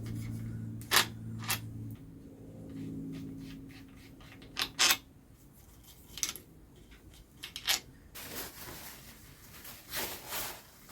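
Scattered clicks and light metallic knocks of tools and parts being handled during a BSA Bantam engine strip-down, with a low steady hum that cuts out about two seconds in.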